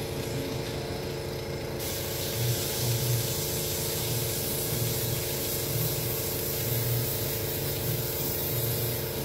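Airbrush spraying, a steady hiss that grows brighter about two seconds in, with a steady hum underneath.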